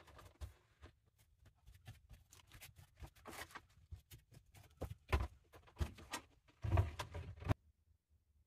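Irregular rustling and light knocks of things being handled and moved about in a small room during tidying, with a louder cluster near the end that stops abruptly.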